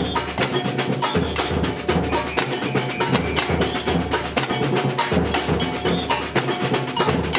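Samba percussion band playing a fast, steady batucada: deep surdo bass drums booming in a repeating pattern under a dense run of snare and hand-percussion strokes.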